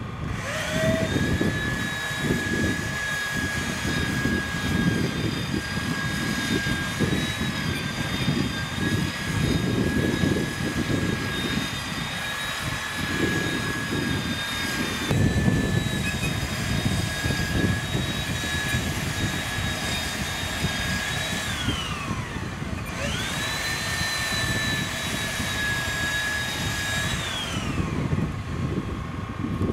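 An electric power tool's motor spins up to a steady high-pitched whine and runs for about twenty seconds. It then winds down with a falling pitch, spins up again a second later, runs a few seconds more and winds down again. A rumbling, gusty noise, like wind on the microphone, runs underneath.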